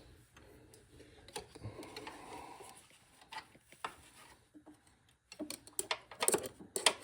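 Scattered light clicks and taps, with a few sharper knocks near the end: hand tools and hose-clamp hardware being handled while working on a hydraulic hose.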